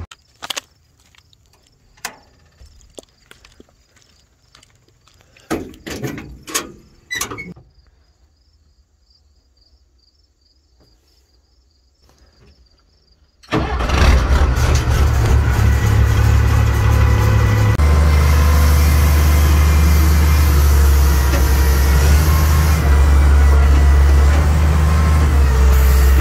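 A few scattered knocks and clicks, then about halfway through an old dump truck's engine starts abruptly and runs loud and steady, its low note strengthening a few seconds later as it settles into running.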